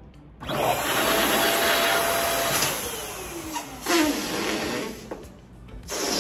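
Electric balloon inflator running, blowing air into a latex balloon with a steady motor whine for about two seconds, then winding down in a falling whine. A second short burst of the blower comes near the end.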